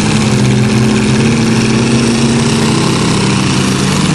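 A school bus and several pickup trucks running their engines hard against each other under full load, a loud steady drone of straining engines with no let-up.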